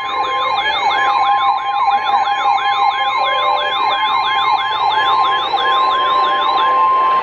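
NOAA Weather Radio warning alert tone, a steady single high tone marking a warning about to be broadcast, layered with a siren-like wail that sweeps down in pitch about three times a second. The wail stops shortly before the end, and the alert tone cuts off abruptly just after.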